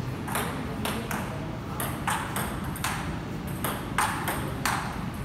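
Table tennis rally: the ball clicking off the rackets and the table in a steady back-and-forth, a couple of sharp hits a second.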